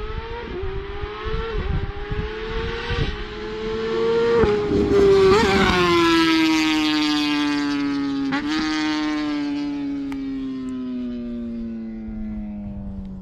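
Kawasaki ZX6R 636 inline-four sport bike with an aftermarket straight-through exhaust passing at speed: the engine note climbs in pitch under acceleration with brief dips, is loudest about five seconds in as it goes by, then falls steadily in pitch as it moves away.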